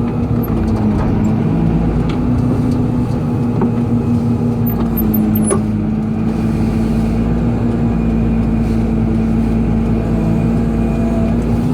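Excavator's diesel engine running steadily under work, a constant hum with a few light clicks around the middle.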